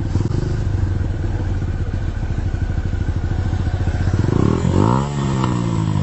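Motorcycle engine idling with a rapid low pulse, then revved once about four seconds in, the pitch rising sharply and falling back toward idle.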